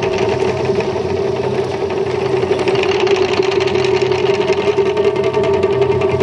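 Ensemble of taiko drums beaten fast with sticks, a dense unbroken run of strokes over a steady ringing drum tone.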